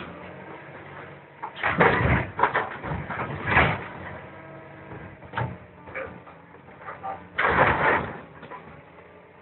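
Hydraulic demolition shear on a tracked excavator cutting into a steel barge hull: irregular bursts of crunching, tearing metal, the longest near the end, over the excavator's steady engine.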